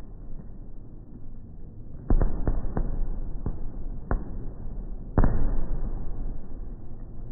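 Fireworks going off: a quick run of six sharp bangs, then a single louder boom about five seconds in.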